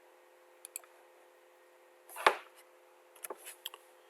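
Computer mouse clicking while a sketch is drawn: a couple of faint clicks, one sharp louder click about two seconds in, then a few small clicks, over a low steady electrical hum.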